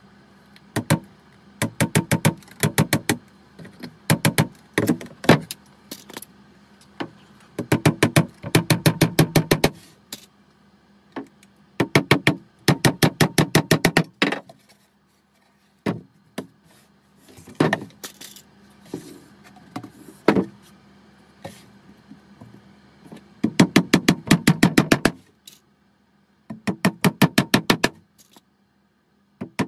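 Claw hammer tapping small nails through a metal frame runner into a wooden beehive super box. The taps come in quick runs of about six to eight a second, each run lasting a second or two, with pauses between runs.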